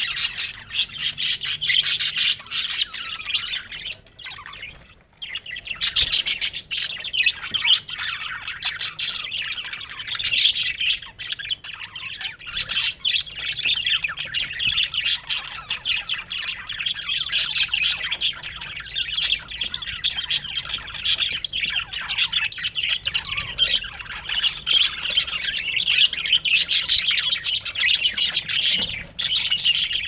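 A flock of budgerigars chattering and chirping continuously, with many overlapping high chirps and squawks. The chatter dips briefly about four seconds in, then carries on.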